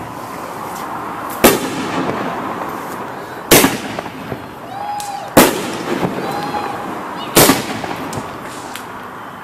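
500-gram aerial repeater cake (AAH Fireworks Super Duper Stunt) firing shells: four sharp reports about two seconds apart, each followed by a fainter trailing sound.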